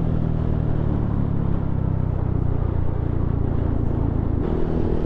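Yamaha scooter's engine running steadily on the move, heard from the rider's seat with the rush of riding noise over it. About four seconds in, the engine note changes and sits higher.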